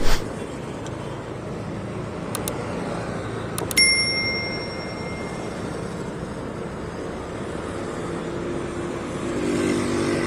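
Honda motor scooter riding along a city road: steady engine, wind and traffic noise. A few light clicks come just before a single bell-like ding about four seconds in, which rings out for a second or so. A low drone swells near the end.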